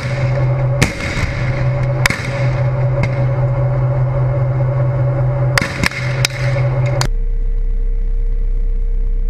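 T-72 tank's V12 diesel engine running steadily, broken by several sharp cracks of gunfire. About seven seconds in it cuts off and a BMP infantry fighting vehicle's engine drone with a steady hum takes over.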